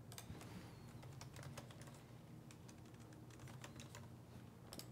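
Faint typing on a computer keyboard: a quick, irregular run of keystrokes over a low steady hum.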